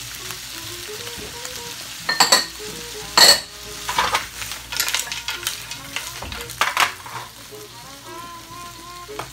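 Seafood (clams, mussels, calamari and shrimp) sizzling steadily in a frying pan over a gas flame as it is stirred, with a few sharp knocks of utensil and pan. The loudest knock comes a little over three seconds in.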